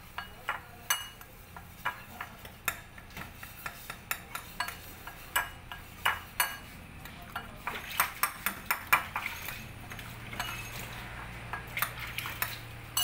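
Metal spoon clinking and scraping against a white ceramic bowl while dry spice powders are stirred together, in quick irregular taps.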